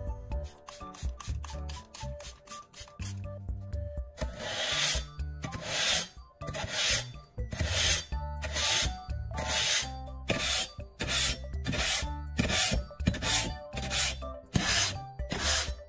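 Steel cleaver blade scraped back and forth against the abrasive-wrapped tubes of a homemade PVC-and-wood knife sharpener, one rasping stroke after another. The strokes start about four seconds in, come a little over one a second and quicken towards the end, over background music.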